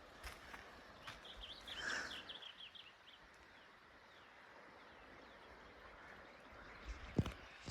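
A bird calls a quick run of short, high chirps about a second in, over faint outdoor background. A couple of sharp knocks near the end.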